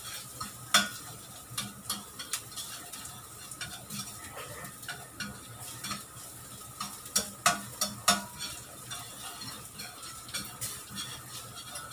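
Chopped garlic and ginger sizzling in hot oil in a frying pan, stirred with a spatula that scrapes and clinks against the pan. The sharpest clinks come about a second in and twice about two-thirds through.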